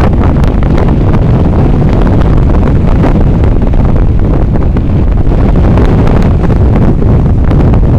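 Heavy wind buffeting the microphone: a loud, steady low rumble that never lets up.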